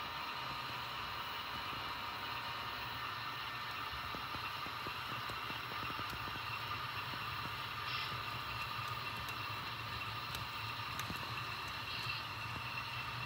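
N scale model diesel locomotives running along the track: a steady electric motor whir with a few light clicks from the wheels on the rails.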